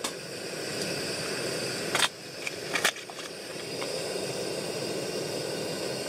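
A steady hiss, with a few sharp crackles of a plastic sausage packet being handled, the loudest about two and three seconds in.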